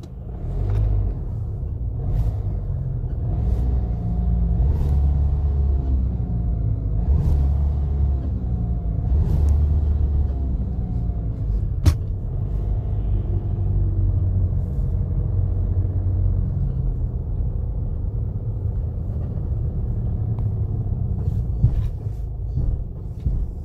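Kia Sportage R being driven: a steady low rumble of engine and road noise, with a few light knocks and one sharp click about twelve seconds in.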